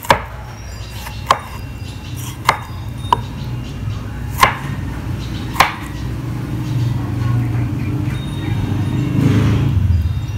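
Kitchen knife chopping vegetables on a bamboo cutting board: six sharp knocks of the blade on the wood, spaced about a second apart through the first six seconds, over a steady low hum.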